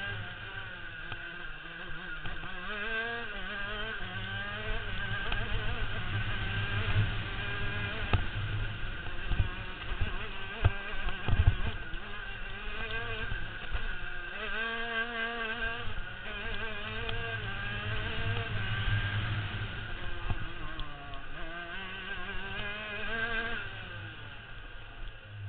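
125cc two-stroke kart engine revving hard and backing off over and over, its pitch climbing on the straights and falling for the turns. A low rumble on the onboard microphone comes with a few sharp knocks about ten to twelve seconds in.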